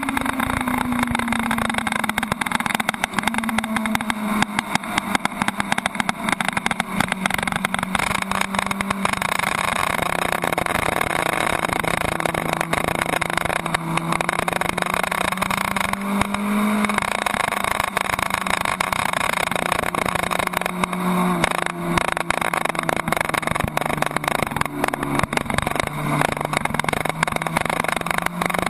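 Suzuki Hayabusa's inline-four engine pulling steadily at track speed, with wind rushing past the tank-mounted microphone. The engine pitch holds mostly steady, rising and dipping briefly a few times.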